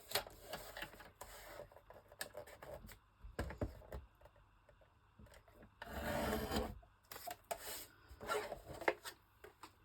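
Paper being cut and handled at a craft table: scattered light clicks and rustles, with a longer rubbing stretch of about a second past the middle.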